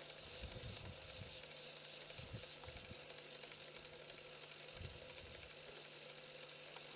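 Quiet outdoor ambience: a faint steady hiss with a few brief soft low bumps.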